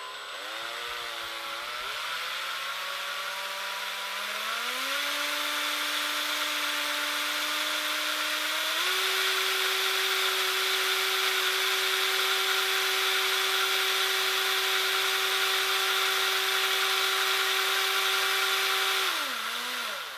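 Cordless drill motor whining as it spins an empty line spool on a bolt, winding fishing line off a reel. Its pitch wavers at first, rises in steps as the trigger is squeezed harder, holds steady for about ten seconds, then falls and stops just before the end as the line runs out.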